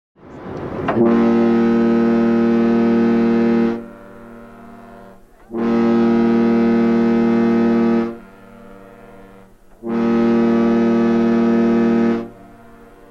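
A Louis Cruises cruise ship's horn sounding three long, steady blasts of about two and a half to three and a half seconds each, with short pauses between them. The first blast swells in over about a second. Low background noise fills the gaps.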